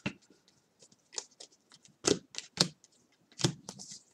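Baseball trading cards being handled and flipped through in the hands: an irregular run of sharp clicks and snaps as the stiff cards slap and slide against each other.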